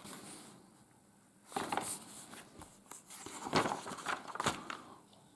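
Paper instruction booklet being leafed through and laid open on a table: a quiet first second, then several short rustles and soft knocks of pages and the booklet being handled.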